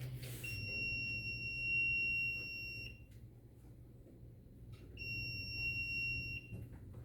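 Home-alarm buzzer on a Raspberry Pi project giving two long, steady high-pitched beeps, the first about two and a half seconds, the second about a second and a half, with a pause of about two seconds between them.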